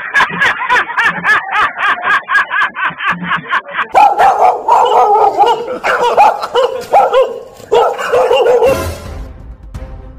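Recorded dog barking played loudly through a portable speaker: a fast run of high yaps for about three seconds, then deeper, more spaced barks. The barking stops near the end as music comes in.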